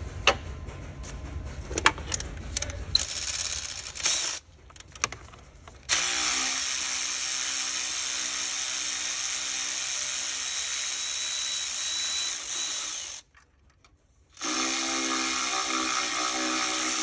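Cordless electric ratchet running, backing a fuel-rail bolt out of a Detroit DD-series diesel engine. After a few seconds of light clicks and knocks, the ratchet runs steadily for about seven seconds, stops briefly, then runs again for about three seconds.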